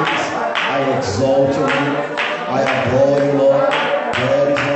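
Church congregation singing a praise song together with steady hand clapping, about two claps a second.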